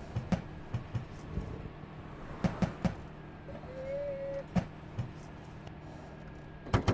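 Irregular knocks and thumps on something solid, several in quick clusters with a tighter burst of sharper knocks near the end, over a steady low hum.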